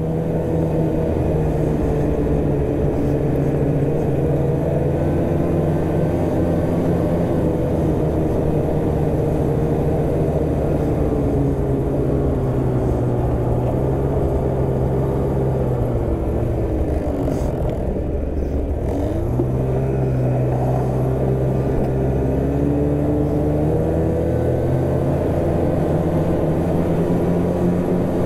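Two-stroke snowmobile engine running steadily under way, its pitch wavering with the throttle. About two-thirds of the way through it eases off, then picks up speed again.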